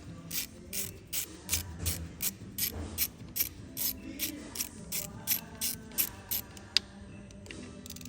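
Hand ratchet clicking in a steady rhythm, about three clicks a second, as it turns a 10 mm bolt, stopping with one sharper click near the end.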